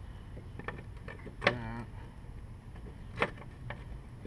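Lawn mower parts clicking and knocking as a part is fitted into place by hand: a sharp click about a second and a half in, a second one about three seconds in, and a few fainter taps.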